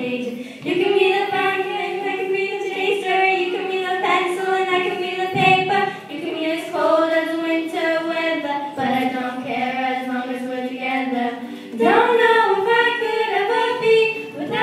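A group of young girls singing a song together, their voices holding long notes that step from pitch to pitch, with short breaks between phrases.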